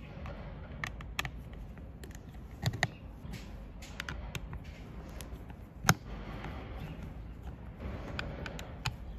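Phillips screwdriver unscrewing the star screws from the plastic back housing of a Honda CRF250L instrument cluster: scattered small clicks and light scraping of the tool and hands on the plastic, with one sharper click about six seconds in.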